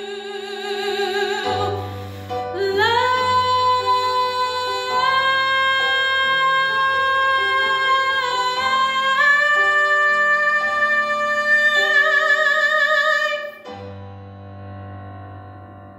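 A woman singing the closing notes of a song with vibrato over a sustained accompaniment. She scoops up into one long high held note about two and a half seconds in and steps it up in pitch a couple of times. Her voice cuts off about thirteen and a half seconds in, leaving the accompaniment's last chord fading out.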